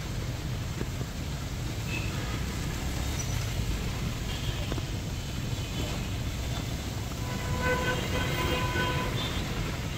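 Steady noise of heavy rain and street traffic with a low rumble. Near the end a vehicle horn sounds in a few short toots.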